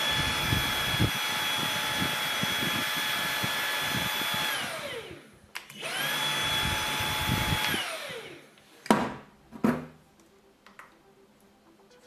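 Dreame V11 cordless vacuum's motor running with a steady high whine, spinning down with a falling pitch about four and a half seconds in. It starts again about a second later and runs for two more seconds with the trigger released, held on by its continuous-run lock, before spinning down again. Two sharp knocks follow near the end.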